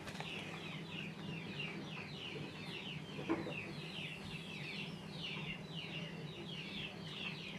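Birds chirping: a steady run of short, falling chirps, about two a second, over a low steady hum.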